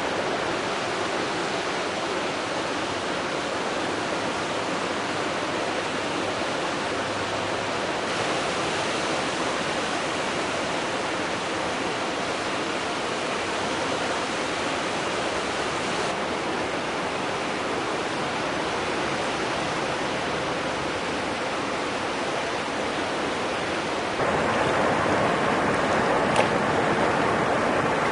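A river in flash flood: fast muddy floodwater rushing steadily, growing louder near the end as the turbulent current surges close by.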